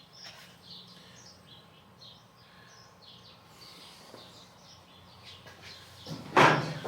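Small birds chirping off and on over a low steady hum, with a loud knock near the end.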